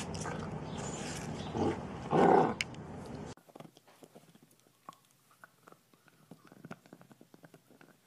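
A short, loud animal call over a noisy background about two seconds in, then the sound drops suddenly to faint scattered clicks.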